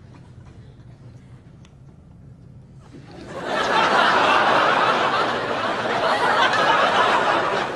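Studio audience laughing: a hush for about three seconds, then loud, sustained laughter from the crowd.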